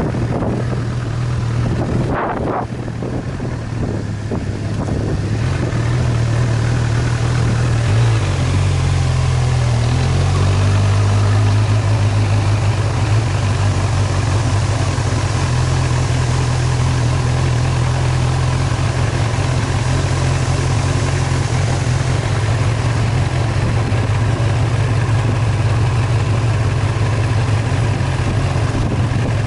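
Engine of a vehicle driving along a dirt track, running steadily with a low drone; its pitch shifts about a third of the way through. Wind gusts over the microphone near the start.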